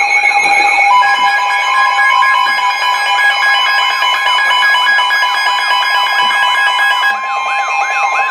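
Weather radio alert alarm: a steady 1050 Hz warning tone comes in about a second in, layered with pulsing beeps and a warbling siren-like tone that sweeps up and down several times a second. The warble slows near the end. The tones signal that a warning is about to be broadcast.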